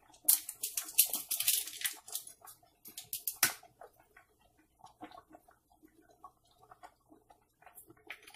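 Spice containers being handled and shaken to season a pan of meat: a flurry of quick, crisp rattles and crinkles in the first two seconds, a sharp click about three and a half seconds in, then faint taps and rustles.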